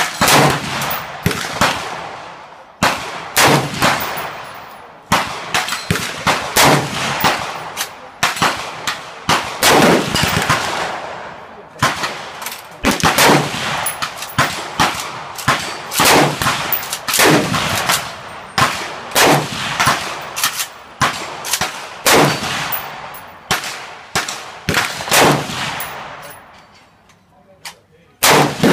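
IIA Defense 5.56mm rifle firing a long string of single shots at an uneven, often quick pace, each shot sharp with an echoing tail. There are short pauses between groups of shots and a quieter gap near the end.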